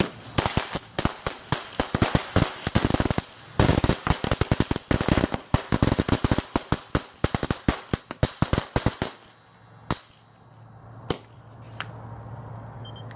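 'Crack the Whip' crackling firework burning on a spinning Beyblade: a fast, uneven run of sharp cracks and pops that dies out about nine seconds in. A couple of last single pops follow, then a low steady hum.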